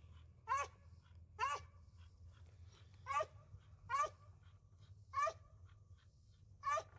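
A dog barking, six short barks spaced about a second apart.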